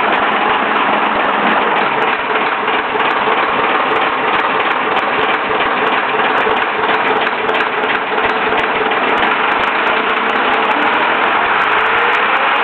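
Leyland National bus's replacement engine running steadily on a road test. A faint tone rises in pitch near the end.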